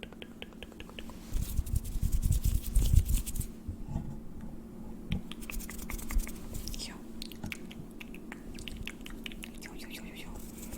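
Close-miked ASMR trigger sounds: dense crackly clicks, loudest for about two seconds shortly after the start with heavy rustling against the microphone, then sparser clicks.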